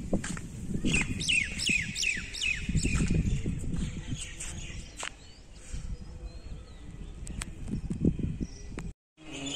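A bird chirping, with a quick series of descending chirps from about one to three seconds in, over a low rumble of wind on the microphone.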